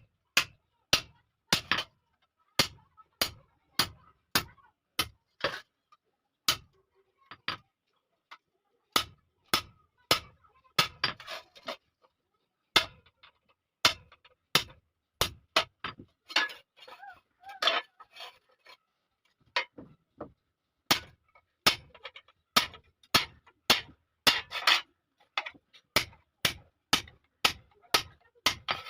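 Blacksmith's hand hammer striking iron on an anvil, forging a hasuwa blade by hand. The blows come one or two a second at an uneven pace, each a sharp clang with a short ring.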